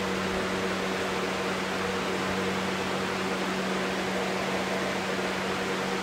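Lasko 20-inch premium box fan running with a shallow, nearly pitchless blade from an Air King fan: a steady, loud rush of air with a constant hum under it.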